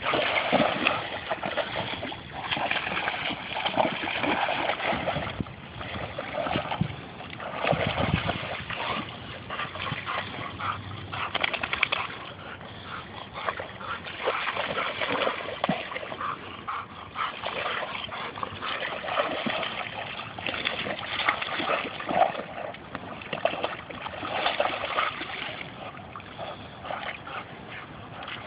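A dog wading and pawing in shallow pond water, splashing in irregular spurts as it stamps and lunges at the water's edge.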